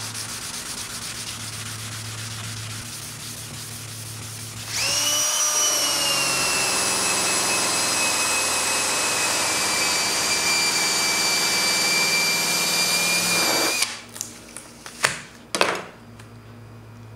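An aluminium badge is scrubbed by hand with an abrasive block, a scratchy rubbing. About five seconds in, a cloth buffing wheel on a handheld power tool spins up and runs with a steady high whine while polishing the metal, then stops suddenly near fourteen seconds. A few sharp knocks follow.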